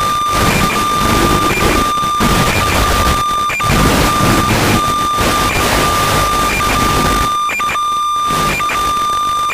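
Static on an analog FPV video link's audio: a steady hiss and rumble under a constant high whine that cuts out briefly many times, with the noise swelling and dropping out as the signal breaks up.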